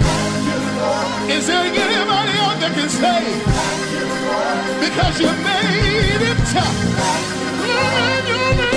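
Gospel song: a lead singer with a wavering vibrato over band accompaniment with a steady low beat.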